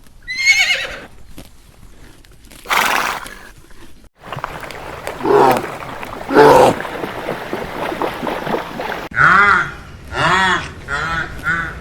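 A series of animal calls. A horse whinnies with a falling pitch about half a second in, then comes a short noisy snort-like burst. Two more pitched calls follow midway, then a quick run of short rising-and-falling calls near the end.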